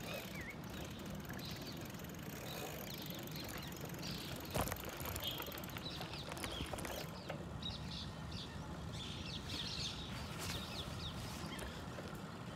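Birds chirping, with many short calls that come thickest in the second half. Under them runs a steady low rumble from a bicycle riding a dirt track, with one sharp click about a third of the way in.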